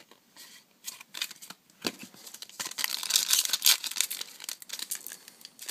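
Foil trading-card booster pack crinkling and tearing open, after a few light clicks of cards being handled.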